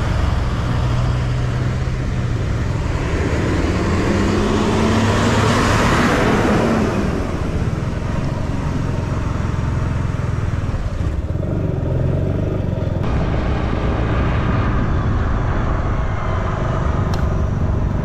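Road traffic: a nearby engine running steadily at low revs, with a passing vehicle swelling up and fading about five to seven seconds in, its engine note rising as it goes by.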